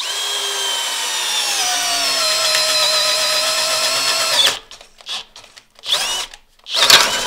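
Bosch 12-volt cordless drill boring into wood with a self-feeding spade bit: a steady motor whine that drops in pitch about two seconds in as the bit bites and pulls itself into the wood. It stops after about four and a half seconds, and a few shorter bursts follow near the end.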